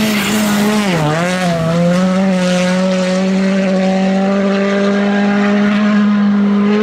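Škoda Fabia Rally2's turbocharged four-cylinder engine running hard on a gravel stage. Its note dips about a second in, then holds a steady high note as the car pulls away.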